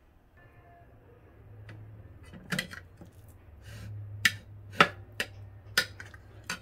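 A metal spoon clinking against a ceramic plate while scooping cooked squash: about seven sharp, irregular clinks, starting about two and a half seconds in.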